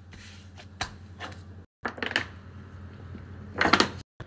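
Food-prep handling sounds: short taps and rustles of a gloved hand pressing çiğ köfte paste onto a paper-lined flatbread, then a squeeze bottle spurting sauce over it. The squirt is the loudest part, near the end, and two brief gaps break the sound.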